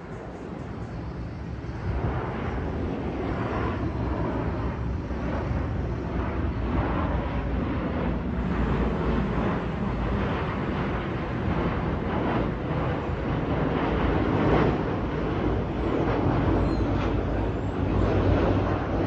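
Airliner's jet engines rumbling as it passes; the noise swells about two seconds in and stays loud and steady.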